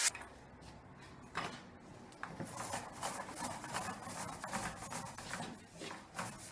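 Paint roller rolled back and forth over a textured drywall patch, putting on primer: a soft, uneven rubbing with many small clicks. The rolling starts about two seconds in, after a near-quiet stretch with a single click.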